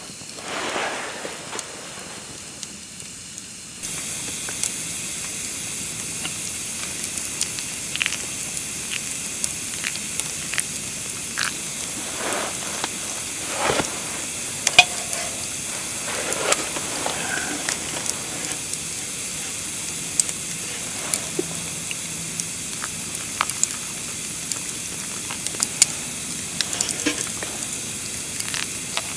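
Food frying in a pan: a steady sizzle with scattered pops and crackles, starting abruptly about four seconds in.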